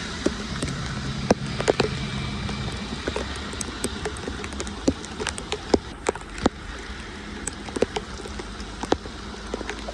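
Rain falling on a street: a steady hiss of water with many scattered, irregular drop ticks. A low vehicle hum fades out about two and a half seconds in.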